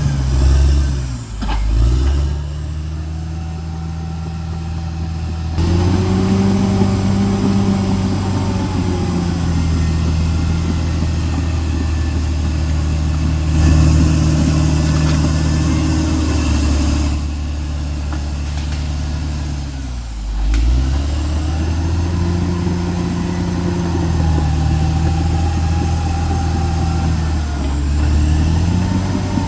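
CAT D6R XL bulldozer's diesel engine running steadily, its pitch dropping sharply about a second in and again about twenty seconds in, each time recovering quickly, and rising again near the end.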